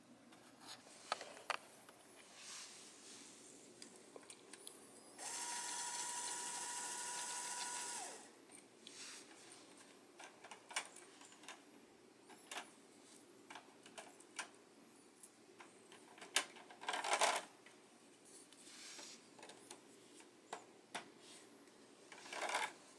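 A small LEGO Power Functions electric motor driving the model truck's winch runs with a steady whine for about three seconds. Around it, plastic LEGO parts click and rattle as they are handled, with a louder rustling clatter twice later on.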